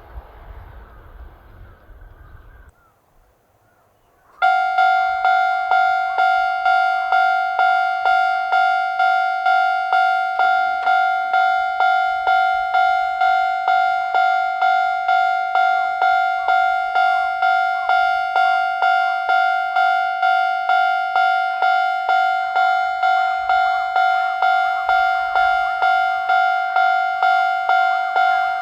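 The noise of a passing train stops about three seconds in. A second later, a Japanese level crossing's electronic warning bell starts. It rings the same two-note electronic ding over and over in a steady, even rhythm, which signals that a train is approaching and the crossing is closing.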